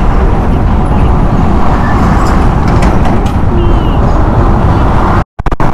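Wind buffeting and road noise on a motorcycle-mounted microphone while riding in slow traffic among trucks. The sound drops out completely for a moment near the end.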